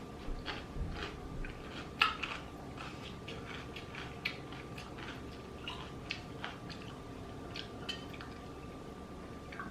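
Eating sounds up close: chewing of spicy instant noodles and rice cakes, with scattered light clicks of utensils against a bowl, the sharpest about two seconds in. A faint steady high hum runs underneath.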